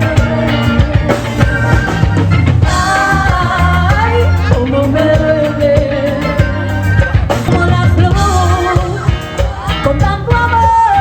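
A rock song with singing over bass, drums and guitar.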